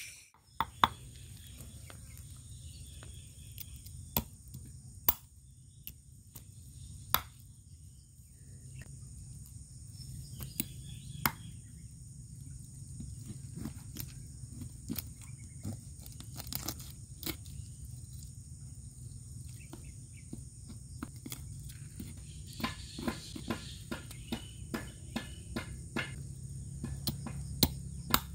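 Night insects, crickets among them, chirring steadily at a high pitch, with scattered sharp clicks and knocks that come more often near the end.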